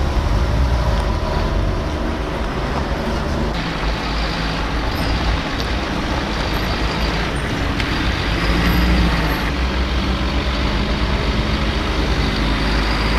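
Heavy military trucks, M142 HIMARS rocket launchers with a Humvee, driving past, their diesel engines running with a steady deep rumble and tyre noise, shifting suddenly a few times.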